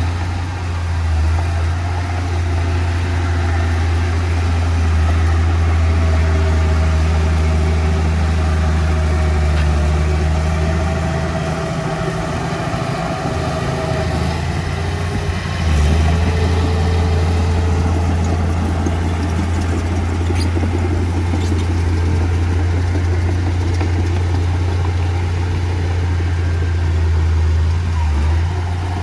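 Diesel engine of heavy earthmoving machinery running with a steady low drone. Partway through, the drone eases off for a few seconds, then comes back abruptly.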